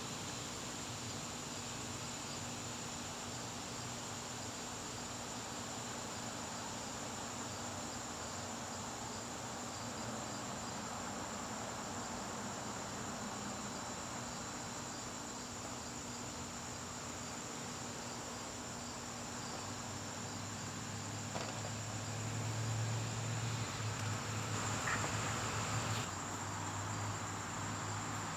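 Crickets chirping in a steady, high, unbroken trill. A low hum swells up underneath near the end.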